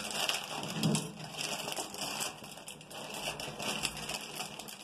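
Gas stove burner heating an aluminium pot of water, giving an uneven crackling hiss.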